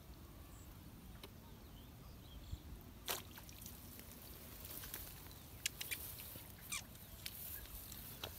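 A short splash about three seconds in as a small fish is jerked out of shallow canal water on a bamboo-pole hook line, then a few light clicks and rustles, over a faint low rumble of wind.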